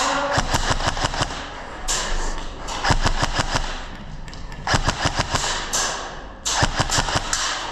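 Airsoft guns firing in short, rapid bursts of sharp snapping shots, several separate strings of fire.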